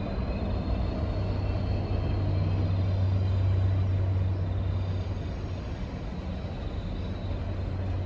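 Indian Pacific train moving slowly past, its NR and G class diesel-electric locomotives giving a steady low drone over the rumble of the stainless-steel carriages on the rails.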